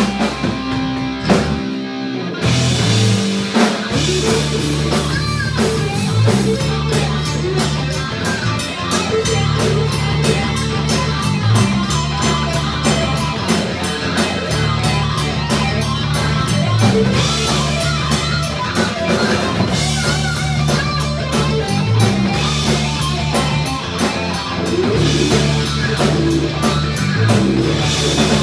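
Rock band playing an instrumental passage: electric guitar over a driving bass line and drum kit, with no singing. The band stops briefly about two seconds in, then comes back in.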